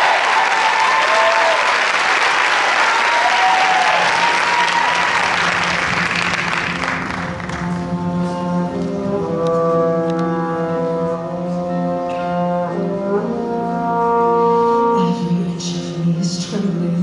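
Audience applause and cheering that fades out about seven seconds in, followed by a live show-choir band opening the next number with held chords that change every second or two.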